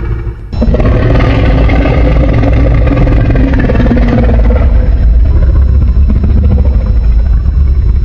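Custom-made Monsterverse-style Godzilla sound effect: a loud, heavy rumbling sound that cuts in abruptly about half a second in, after a short dip, and carries on, easing a little in the second half.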